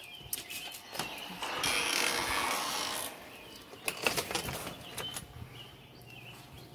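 Cabin doors being worked: a handful of sharp clicks and rattles from the screen door and front door latch, with a rustling stretch in between. Another cluster of clicks comes about four seconds in as the brass doorknob turns and the door opens. A low steady hum comes in after that, with faint bird chirps.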